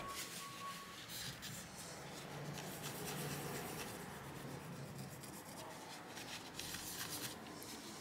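Tissue paper rubbing over an RTX 2060 Super's GPU die and circuit board in quiet repeated strokes, wiping off a smear of thermal paste.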